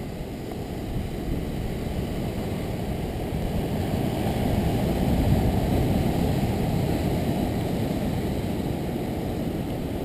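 Steady roar of big ocean surf breaking over rocks, mixed with wind buffeting the microphone. It swells a little around the middle and then eases.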